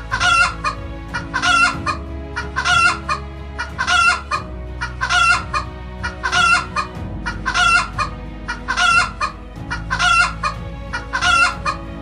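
Chicken calling: the same short, high call repeated ten times at an even pace, about one every second and a bit, over soft background music.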